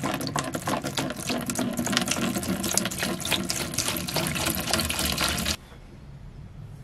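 A stream of liquid pouring and splashing into a plastic tub. The pour stops suddenly about five and a half seconds in, and a faint hiss follows.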